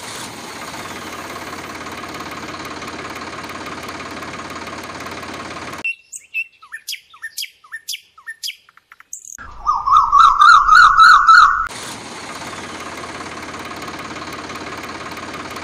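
Steady sound of a tractor engine idling. About six seconds in it breaks off abruptly for a run of short bird chirps, then a loud, rapidly warbling bird trill lasting about two seconds. The engine idling then starts again just as abruptly.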